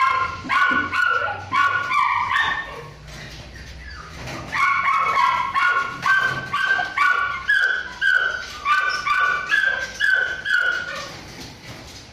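Kennelled dogs giving a rapid string of short, high-pitched yelps and whines, with a brief lull about three seconds in.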